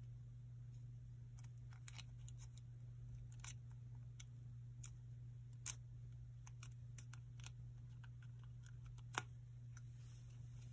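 Faint crackles and rustles of a small sheet of origami paper being creased and folded by hand, with two sharper crisp clicks, one about halfway through and one near the end, over a low steady hum.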